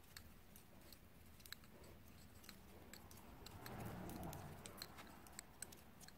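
Faint, irregular clicks of metal double-pointed knitting needles tapping against each other as stitches are knit and purled, against near silence.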